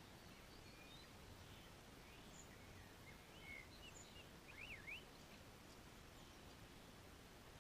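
Faint bird calls over a low background hiss. Scattered short chirps and whistles come thicker from about three seconds in, with a quick up-and-down whistle near the middle.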